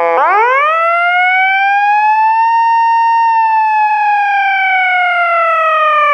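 Fire engine siren wailing: the pitch shoots up right at the start, keeps rising more slowly to a peak held for about a second, then falls slowly toward the end.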